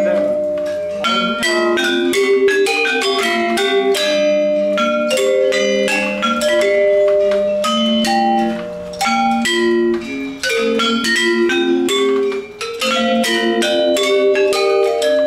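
Balinese gender wayang quartet: four bronze-keyed metallophones struck with disc-headed mallets, playing a dense, fast stream of ringing notes with no pause.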